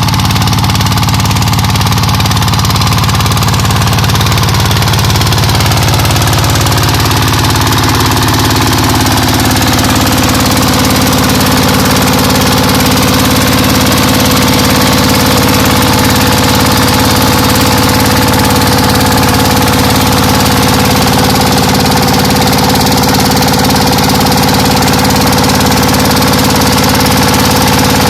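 Diesel engine idling steadily after its camshaft gear timing has been reset to cure misfiring.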